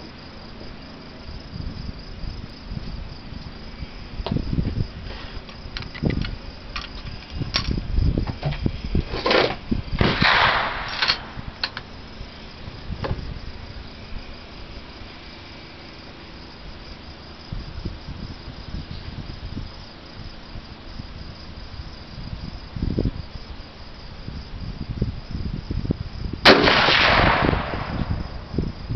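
A scoped bolt-action rifle fired once from a bipod near the end, a single loud report followed by about a second of ringing. Before it come scattered knocks and handling sounds, over a steady high chirring of insects.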